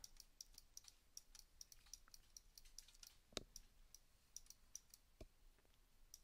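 Faint, irregular clicking of a computer mouse and keyboard, several small clicks a second, with one louder click about three and a half seconds in.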